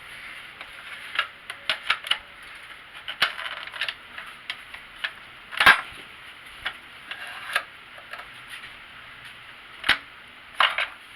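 Irregular sharp clicks and light knocks from hands fitting a new 12 V car battery and its hold-down parts in the tray, the loudest a little under six seconds in.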